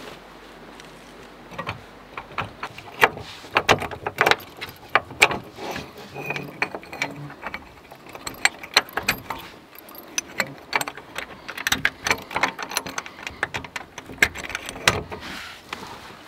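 Irregular clicks, knocks and rattles of gear being handled, with clusters of sharper clanks.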